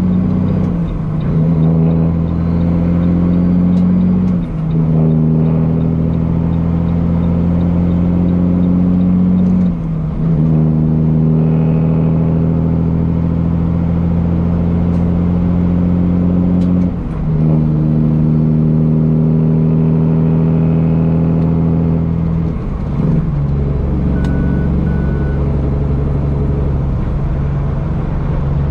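Peterbilt 379's straight-piped Cummins diesel pulling at highway speed: a steady, loud, deep exhaust note. It dips briefly four times, every five to seven seconds, and after the last dip near the end it settles at a lower pitch.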